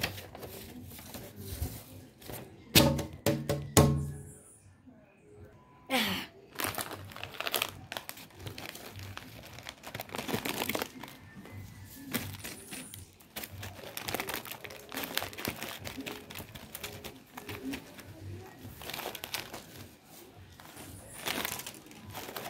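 A plastic snack bag crinkling as it is opened and handled, from about six seconds in. About three seconds in, a short pitched sound comes before it and is the loudest moment.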